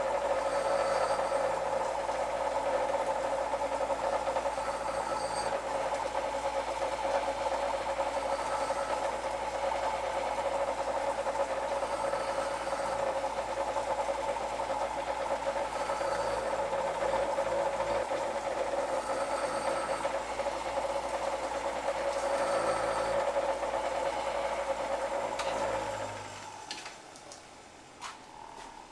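Corded electric power tool's motor running steadily for about 26 seconds, with a high-pitched edge that swells every three to four seconds, then it stops near the end.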